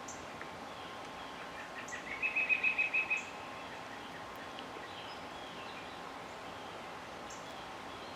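A bird gives one short, rapid trill of about eight quick notes about two seconds in, rising a little in pitch and then holding steady. Faint high chirps and steady outdoor background noise sound throughout.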